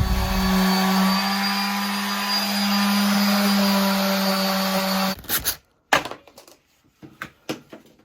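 Electric power sander running steadily on wood for about five seconds, then switched off abruptly, followed by a few scattered knocks.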